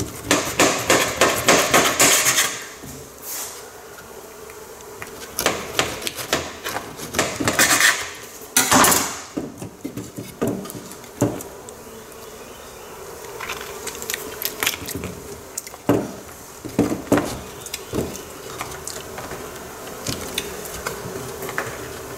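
A knife sawing through beeswax comb in rapid scraping strokes for the first couple of seconds, then scattered knocks and scrapes of a wooden frame and comb being handled on a stainless steel table.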